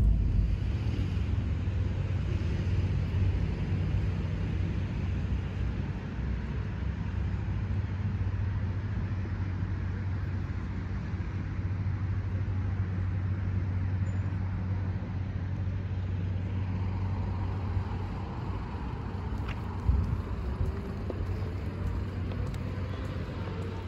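Steady low rumble of a motor vehicle, with a single thump about twenty seconds in.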